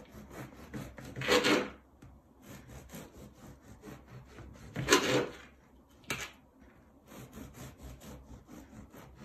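Knife sawing back and forth through a loaf of brown bread on a cutting board: runs of quick rasping strokes, a few of them louder, with a sharp tap about six seconds in.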